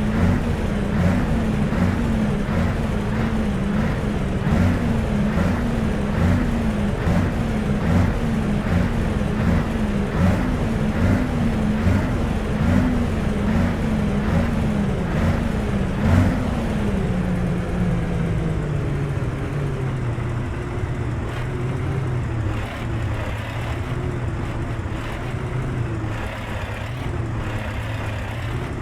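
Scania R520's V8 diesel engine with its stock exhaust, engine speed rising and falling about once a second for roughly the first half. Then the revs drop away and it settles into a steady idle.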